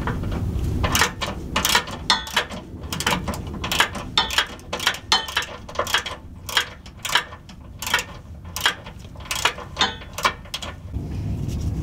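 3/8-inch ratchet clicking in short runs as its handle is swung back and forth, loosening a 13 mm bolt on the fuel filter mounting bracket.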